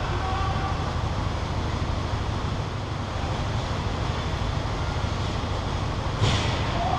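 Steady rumble and hiss of an ice-rink arena picked up by a camera mounted at the hockey goal, with one sharp crack about six seconds in.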